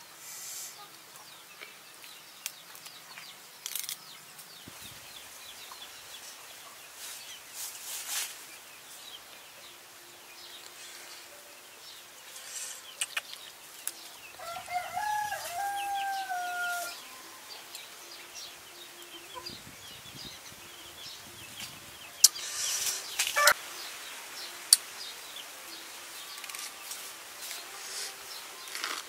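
A rooster crows once, about halfway through. Around it are scattered clicks and rustles from hands handling lettuce leaves and a spoon in a glass bowl, the loudest a few sharp clicks about two-thirds of the way through.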